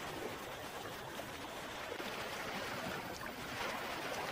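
Gentle lapping and trickling of calm sea water around a sea kayak, with a few faint paddle splashes near the end.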